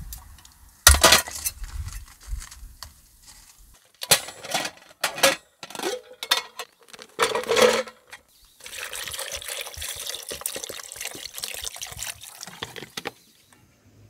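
Knocks and clinks of a metal camp pot on a grill, then a steady pouring hiss for about four seconds as food is poured from a plastic bag into the pot.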